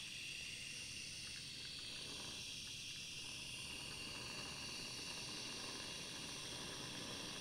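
Faint steady hiss with no other sound, holding at one level throughout.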